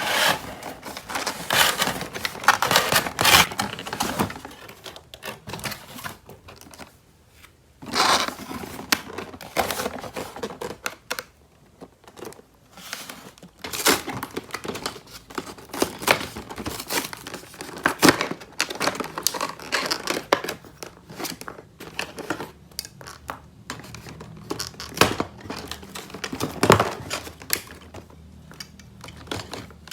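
Toy packaging being torn open and crinkled by hand, in irregular bursts with sharp clicks.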